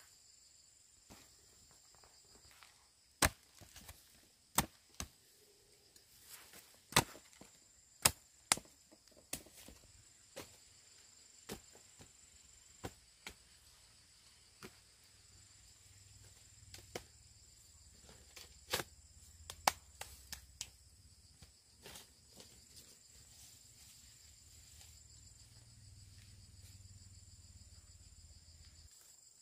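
Irregular sharp chopping strikes of a blade, some loud and many faint, over a steady high buzz of insects.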